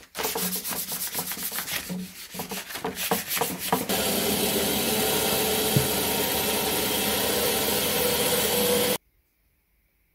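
Hand rubbing and sanding strokes on a cast-plaster dome for a few seconds, then a bandsaw running steadily as it cuts through the plaster. The saw noise cuts off suddenly about nine seconds in.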